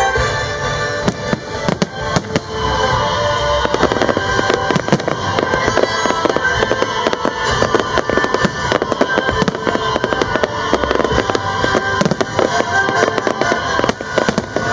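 An aerial fireworks display: a dense run of shell bursts and crackling stars, many quick bangs and crackles coming thicker after a few seconds. Music plays underneath.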